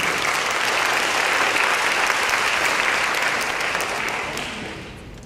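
Audience applauding, a dense steady clapping that fades away over the last second or so.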